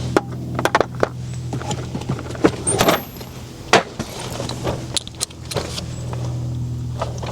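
Irregular metallic clinks and knocks of tools and parts being handled during wheel hub work, about a dozen in all, with a sharper knock near the middle. A steady low hum runs under them.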